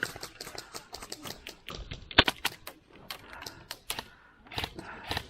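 Airsoft gunfire: an irregular run of sharp snaps from airsoft rifles, the loudest a little over two seconds in.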